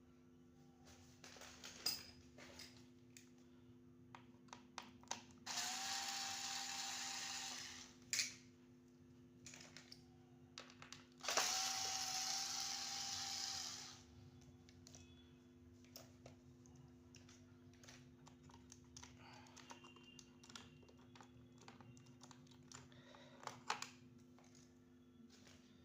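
A small handheld power tool's electric motor runs in two bursts of about two seconds each, spinning up to a steady whine. Between and after the bursts come scattered light clicks and handling knocks, with a faint steady electrical hum underneath.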